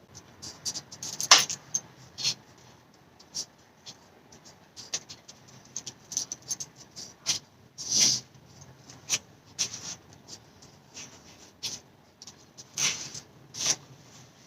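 Irregular small clicks, scrapes and rustles of hands working on the oil filter housing cap while swapping its old O-ring for a new one.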